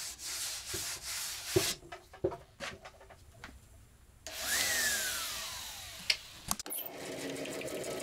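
Sanding dried wood filler flush on plywood: scratchy rubbing strokes with a few sharp knocks. About four seconds in comes a burst of hiss with a whine falling in pitch.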